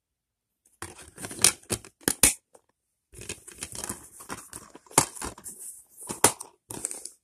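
Plastic DVD keepcase being handled: a run of sharp clicks and crackles as the disc is pressed onto the case's centre hub, then rustling and scraping of the case with two loud snaps later on.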